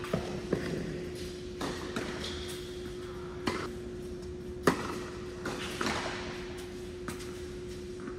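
Tennis balls struck by rackets and bouncing on an indoor hard court, a string of sharp knocks that echo in a large hall. The loudest, about two-thirds of the way in, is a serve. A steady low hum runs underneath.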